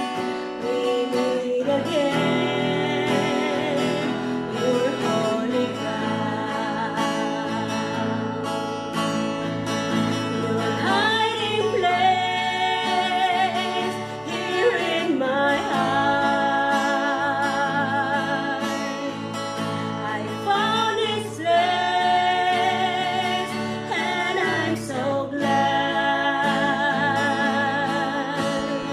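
Two women singing a slow gospel duet to acoustic guitar accompaniment, holding long notes with vibrato.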